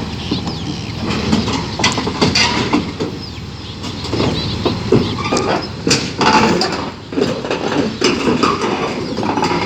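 Crawler bulldozer running, with irregular metallic clanks and knocks over a constant engine rumble.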